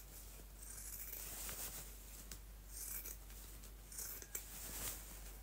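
Scissors cutting through shirt fabric along a seam: faint, irregular snips with the rustle of the cloth.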